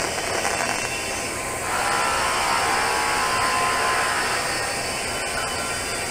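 TIG welding arc burning on a pipe weld joint: a steady hiss that grows a little louder about two seconds in.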